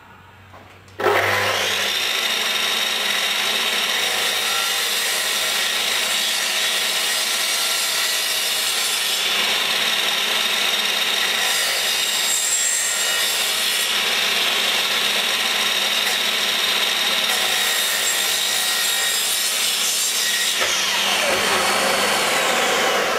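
Electric drop saw (mitre saw) switching on about a second in and running steadily at full speed while its depth-stopped blade makes shallow 5 mm cuts across a timber door-jamb head. Near the end it is switched off, and the blade's whine falls in pitch as it spins down.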